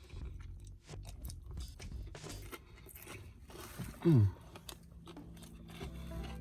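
Chewing and crunching on a battered, deep-fried stuffed chicken wing, with many small crisp clicks. About four seconds in, a short low vocal sound falling in pitch is the loudest thing.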